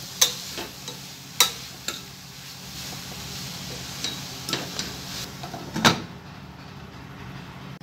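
Steel spoon scraping and clinking against a stainless steel pot while stirring a crumbly mixture that sizzles in hot oil. A louder clank about six seconds in as a glass lid is set on the pot, after which the sizzle is duller.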